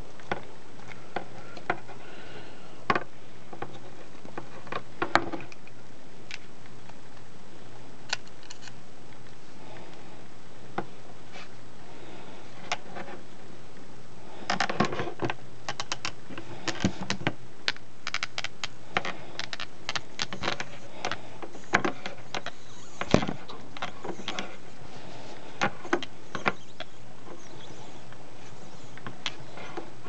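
Small clicks and rattles of a thread tap in a metal tap wrench being handled and turned while threading a plastic Loc-Line nozzle. A few scattered clicks in the first half, then a dense run of quick clicks from about halfway through.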